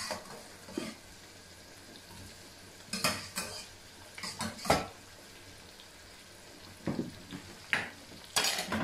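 A metal serving utensil clinking and scraping against stainless steel pots and a plate as cooked potatoes are dished up: scattered clinks, the first about three seconds in and several more near the end.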